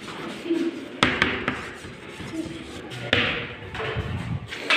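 A few scattered knocks and taps over faint murmuring voices in a classroom.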